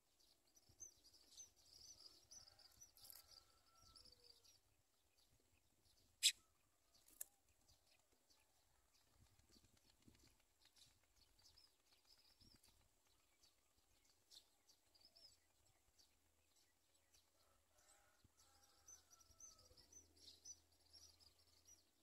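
Faint, rapid, high-pitched chirping of small birds in two spells, one near the start and one near the end, with two sharp clicks about six and seven seconds in.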